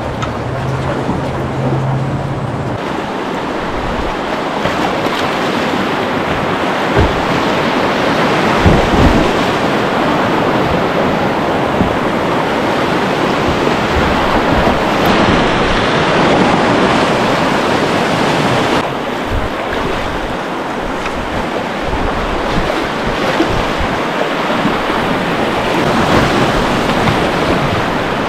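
Whitewater rapids rushing and splashing around a kayak, heard close up from the boat; the rush grows louder a few seconds in as the boat enters the rapid.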